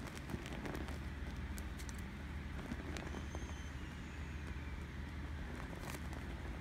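Vinyl of a deflating inflatable toy being squashed and handled, with a few soft crinkles and clicks over a steady low rumble.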